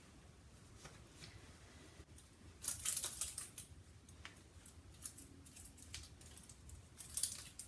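A fabric head scarf rustling as it is pulled off, with light clicks from hands handling metal hair pins. It is quiet, with two louder bursts of rustling about three seconds in and near the end.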